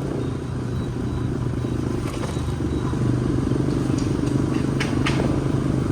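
Motorcycle engine running at a steady speed while riding, with road and traffic noise. A few sharp clicks come near the end.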